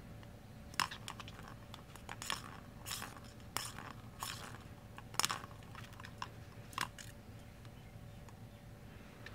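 Small plastic ball clacking and rattling inside a plastic circular track toy as a cat bats at it through the openings: irregular sharp clicks and knocks that thin out near the end.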